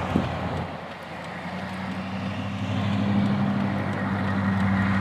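A motor vehicle's engine running with a steady low hum over a noisy wash. The hum grows louder and stronger from about a second and a half in.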